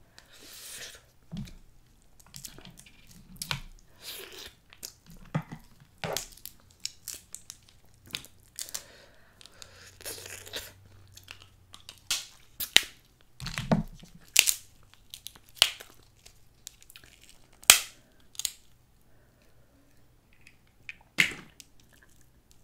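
Someone eating snow crab legs close to the microphone: chewing, with irregular sharp cracks and snaps as the crab shells are bitten and broken apart.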